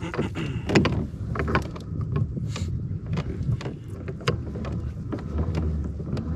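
Pedal-drive kayak under way: water lapping and slapping at the hull, with irregular clicks and knocks, over a low rumble of wind on the microphone.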